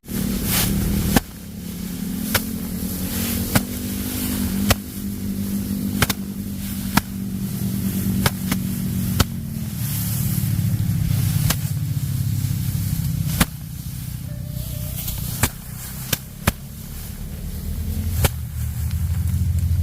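A small engine starts abruptly and keeps running, its pitch drifting up and down. Sharp clicks come through it about once a second.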